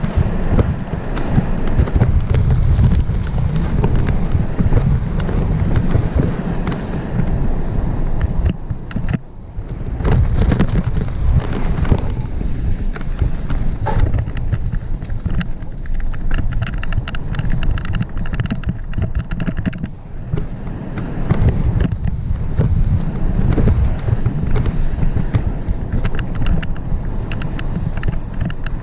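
Wind buffeting a helmet-mounted camera's microphone during a fast mountain bike descent, with the rattle and knocks of a full-suspension mountain bike running over rough dirt singletrack.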